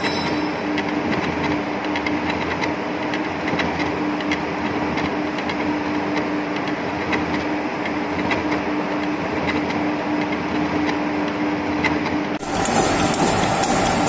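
Machine cutting the thread of a steel worm shaft: a steady mechanical hum with a held tone. About twelve seconds in, it switches abruptly to a brighter, louder machining noise with a higher tone, from a gear-cutting machine cutting a small spur gear.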